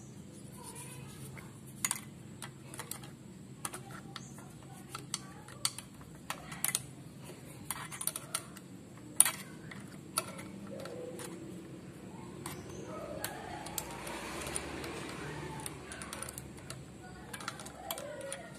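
Irregular small clicks and taps, about one or two a second, from an overlock sewing machine's mechanism being handled and adjusted by hand, with a soft rustling hiss about two-thirds of the way through.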